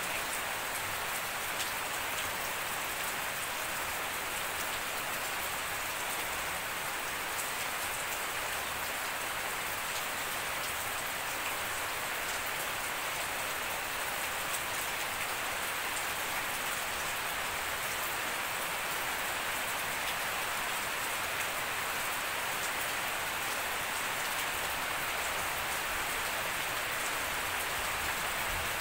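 Steady rain falling on a lawn, leaves and puddles: an even hiss with occasional faint drop ticks.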